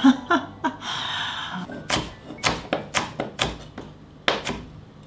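A kitchen knife chopping green pepper on a wooden cutting board: a quick run of sharp knocks, about three or four a second, starting about two seconds in. Before it there is a short rushing noise and a few soft knocks.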